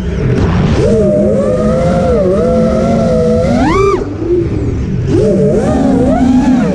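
FPV racing quadcopter's brushless motors whining, their pitch rising and falling with the throttle, over wind rushing past the onboard microphone. The whine climbs sharply and cuts off near the middle, then picks up again about a second later.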